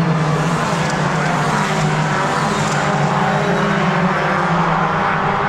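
Formula Ford racing car engines running at speed: a loud, steady engine note with no clear rise or fall.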